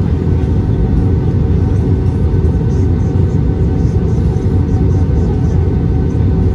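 Steady low cabin rumble of an Airbus A320-214 in flight: airflow and CFM56 engine noise inside the passenger cabin, with a faint steady hum of a few tones above it.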